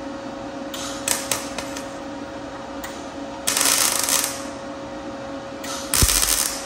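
Two short arc-welding tacks, each a crackling hiss of under a second, about three and a half and six seconds in, joining a steel flare to a fender. A few brief clicks come about a second in, over a steady hum.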